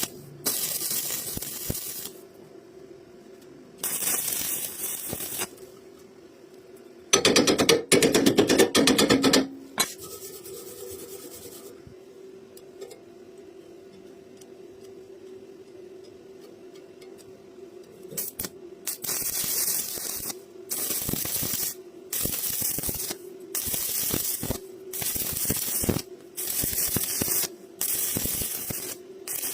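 Electric arc welding on iron rods: the arc hisses in short bursts of a second or two, many in a row in the second half, over a steady hum. About seven seconds in there is a louder, rougher noise lasting about two seconds.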